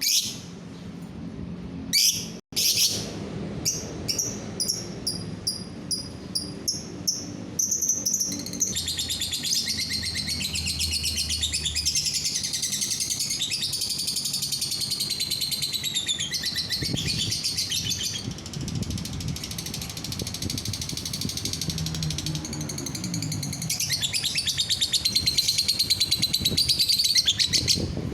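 Lovebird singing: a run of separate high chirps, then about eight seconds in, a long, unbroken, rapid chattering song that grows louder near the end.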